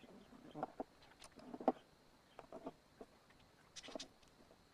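Scattered light clicks, taps and small scrapes of a metal bass bridge being handled and seated on the guitar body, with one sharper click a little under two seconds in.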